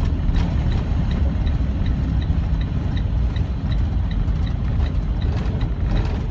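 Semi truck running down the highway with tire chains on, heard from inside the cab: a steady low engine and road rumble, with a light, even tick about two and a half times a second.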